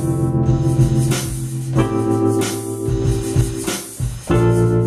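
Sampled chords from a Reason sound library, triggered on the pads of a Native Instruments Maschine Studio: sustained pitched chords that change about every second, with a short dip about four seconds in before the next chord comes in.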